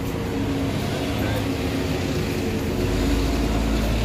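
Low street-traffic rumble that grows louder about three seconds in, under indistinct voices of a crowd.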